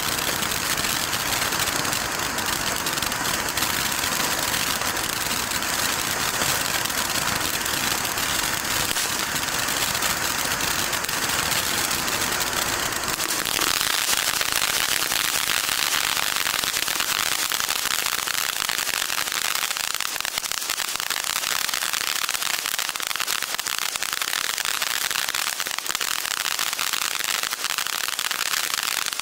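Standard Fireworks Laserquest firework fountain burning: a steady rushing hiss of the spark jet with a dense crackle through it. About halfway through the low rumble drops away and the hiss turns brighter and thinner.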